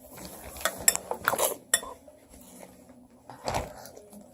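Spoon clinking against a cereal bowl: a handful of sharp clinks in the first two seconds, then a longer clatter about three and a half seconds in.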